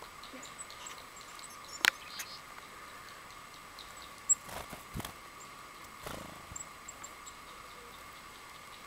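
A few sharp clicks and taps, the loudest about two seconds in, over a faint steady high hum, with small high chirps here and there.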